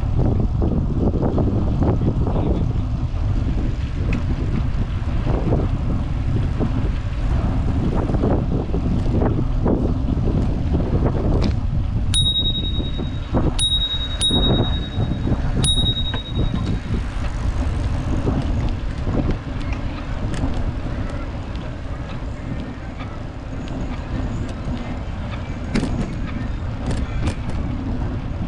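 Steady wind and road rumble from riding a vintage road bicycle, heard through a handlebar-mounted camera. About halfway through, a bicycle bell is rung four times in quick succession, each ding ringing briefly.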